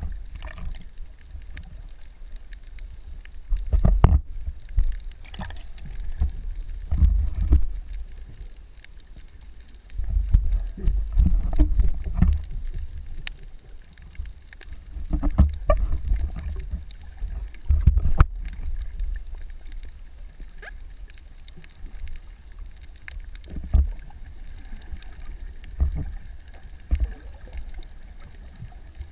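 Muffled underwater sound picked up through a camera's waterproof housing: irregular low rumbles and thumps of water moving around the camera, with a few faint clicks.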